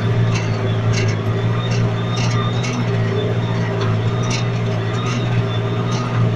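John Deere tractor's diesel engine running steadily under load as it pulls a spring-loaded plough through the soil, heard from inside the cab: a constant low drone with light, irregular clicks and rattles over it.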